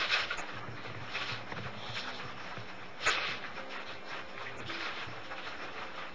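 Quiet clatter and rubbing of dishes being washed by hand, with one sharper knock about three seconds in.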